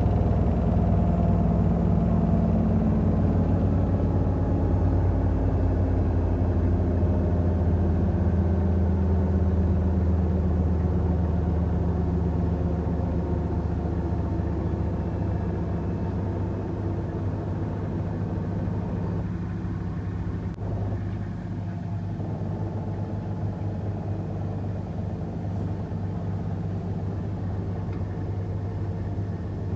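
Samsung washing machine running with a steady, low mechanical hum that slowly gets quieter.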